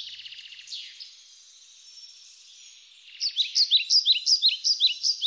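Songbirds singing: fast twittering trills, then from about three seconds in a loud run of sharp, repeated down-slurred chirps, several a second.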